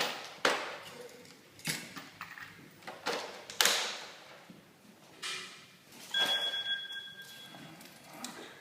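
A few sharp clicks and knocks from handling on a work surface, then about six seconds in a steady electronic tone of about a second that trails off: a phone ringing.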